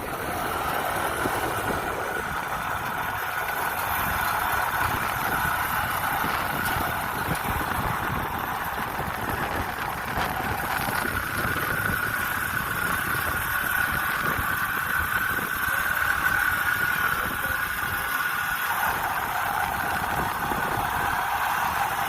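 Kubota DC-105X combine harvester's diesel engine running steadily, a low rumble with a steady whine above it.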